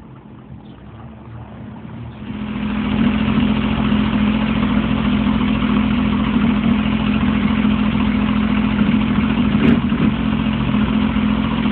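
2012 Sea-Doo GTI 130 jet ski's three-cylinder four-stroke engine running. It gets much louder about two seconds in and then holds a steady, loud drone.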